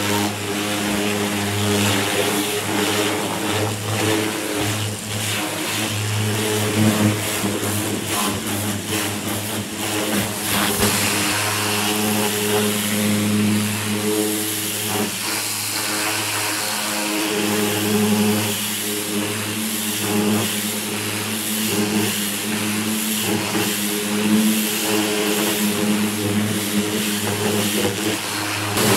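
Pressure washer running steadily, its high-pressure water jet hissing as it blasts softened paint off bare steel car body panels, over the hum of the washer's motor and pump.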